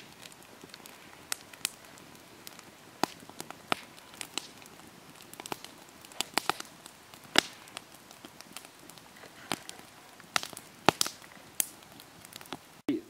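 Campfire crackling, with sharp pops at irregular intervals over a faint hiss.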